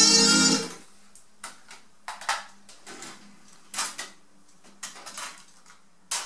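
Music playing from a Philips DCC900 digital compact cassette deck cuts off under a second in. A string of separate mechanical clicks and clunks follows as the deck's motorised loading mechanism unloads the cassette and opens.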